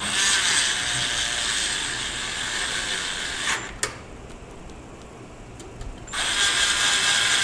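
Cordless electric screwdriver running as it drives screws into a computer case: one run of about three and a half seconds ending in a sharp click, then a second run starting about six seconds in.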